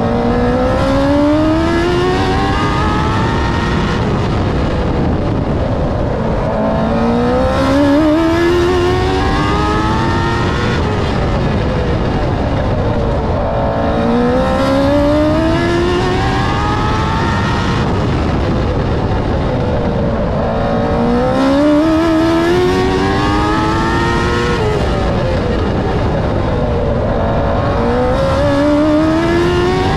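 TQ midget race car engine at racing speed, heard from on board: its pitch climbs down each straight and drops as the throttle comes off for each turn, about every six seconds, over steady wind and tire noise.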